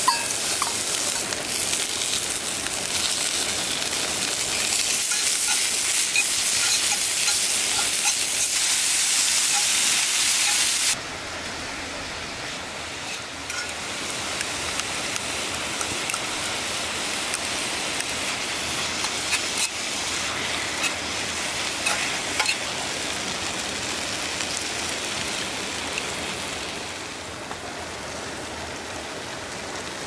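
Sliced onion hitting a hot oiled cast-iron skillet and sizzling loudly. About eleven seconds in, the sizzle drops suddenly to a softer frying of diced pork. Scattered clicks come from metal tongs stirring it in the pan.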